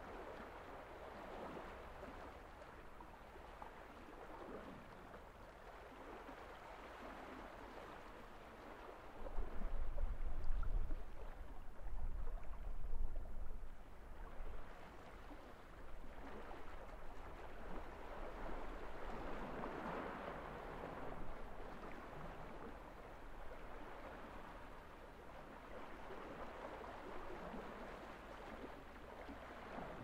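Small sea waves washing onto a gravel beach, the rush of water swelling and fading in slow surges every several seconds. A heavier, deeper surge comes from about a third of the way in to about halfway.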